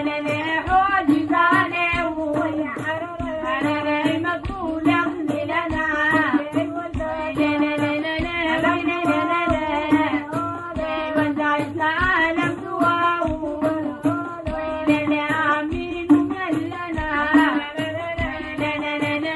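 A group of women singing a traditional Harari song with a held drone-like tone underneath, accompanied by steady hand clapping and a hand drum keeping a regular beat.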